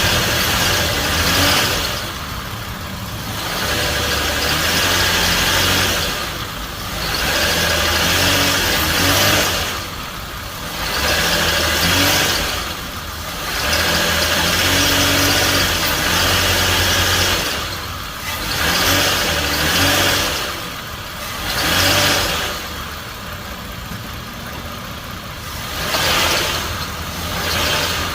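Toyota Avalon's engine revved again and again while the car is held in gear on the brake, each rev swelling for a second or two and dropping back to idle, about every three seconds. This load against the brake is a test for worn motor mounts, which the owner believes are bad.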